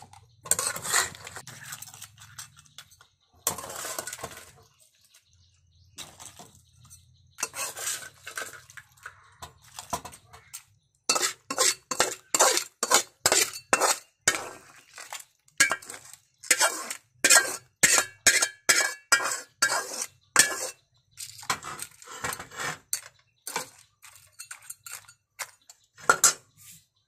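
Metal kitchen utensil clinking and scraping against cookware. A few separate scrapes come first, then a steady run of about two to three quick strokes a second through the middle, thinning out near the end.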